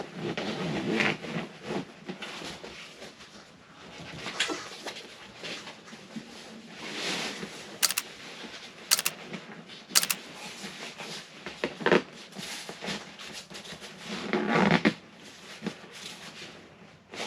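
Soft-top headliner fabric and its zipper being handled and worked closed, irregular rustling and scraping with three sharp clicks about a second apart in the middle.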